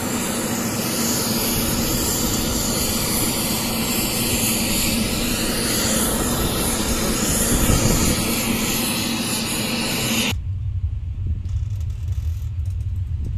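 Large 'horeg' outdoor sound system with subwoofers playing a loud, steady hiss-like test noise across the full range; about ten seconds in the upper range cuts off abruptly, leaving only a deep sub-bass rumble from the subwoofers.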